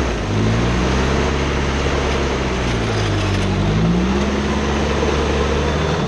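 Lifted off-road pickup truck's engine revving up and down as the truck crawls over a rutted dirt trail, the revs rising again about four seconds in.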